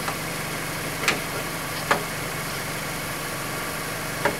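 Car engine idling steadily, with a few short light clicks or knocks from work under the hood: one at the start, one about a second in, one near two seconds and one near the end.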